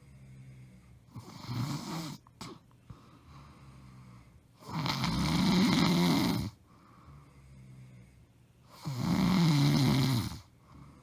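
A woman snoring loudly in her sleep: three snores about four seconds apart, the first softer and shorter, the other two loud and nearly two seconds long, with quiet breathing between them.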